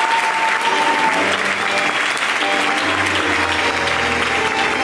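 Audience applauding. About a second in, tango music starts with held low notes underneath the clapping.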